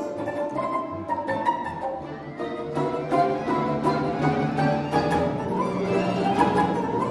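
Russian folk-instrument orchestra playing, a domra soloist out front over massed domras and bayans; the ensemble grows louder about three seconds in.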